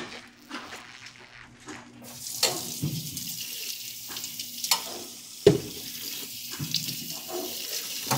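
Tap running into a bar sink while metal cocktail shaker tins are rinsed. The water starts about two seconds in, with a few sharp metal clanks of the tins, the loudest a little past halfway.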